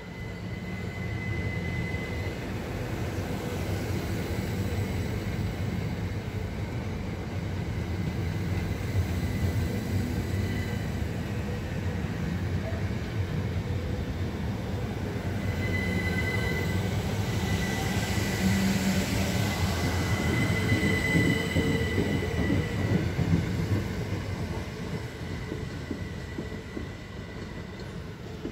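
Two coupled Southern Class 377 Electrostar electric multiple units running past along the platform, a steady rumble of wheels on rail with a high-pitched whine. The sound is loudest about two-thirds of the way through, then fades as the train moves away.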